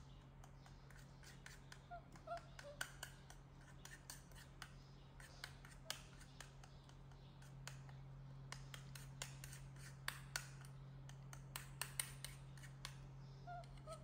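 A spoon clinking and scraping in a small bowl as something is stirred, in many light, irregular clicks over a steady low hum.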